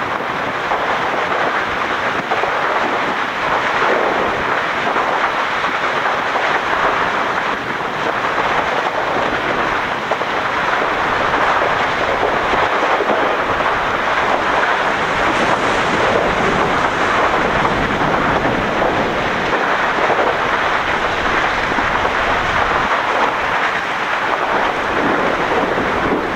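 A steady, loud rushing roar at the rim of a lava-filled pit crater, swelling gently now and then, with no separate bangs or knocks.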